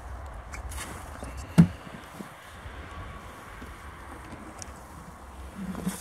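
A single sharp knock about one and a half seconds in, over a steady low rumble, with a few faint clicks and a softer thud near the end.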